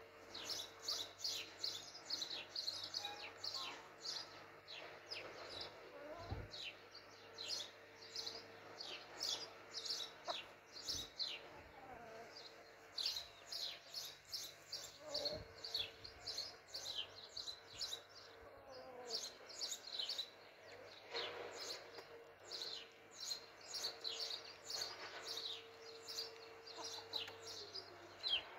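Small birds chirping rapidly and continuously, with an occasional low cluck from the chickens.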